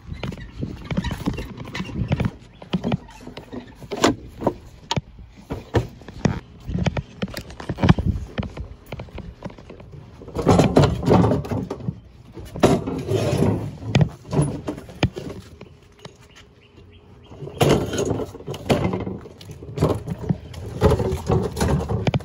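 Irregular knocks, bumps and bangs of furniture being handled, carried and loaded, with denser clusters of clattering about halfway through and near the end.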